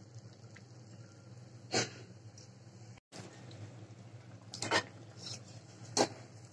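Faint steady hiss of pitha frying in hot oil, with three short taps of a wire spider strainer against the pan as a cake is turned and lifted out.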